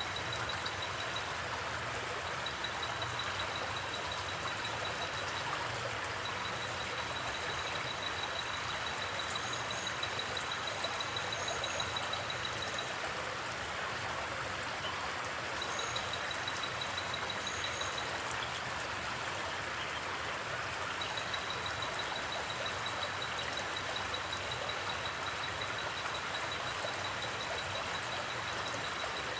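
Steady hiss with a high-pitched, rapidly pulsing insect trill that comes and goes in stretches of a few seconds, plus a few brief higher chirps.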